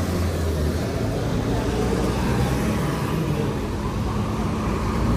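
Steady road-traffic noise in a busy town centre, with a vehicle engine running nearby.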